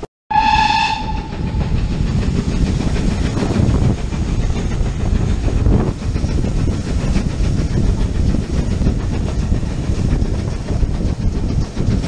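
A steam locomotive whistle gives one short blast, just under a second long, right at the start. It is followed by the steady rumble of the train running along the track, heard from an open carriage window.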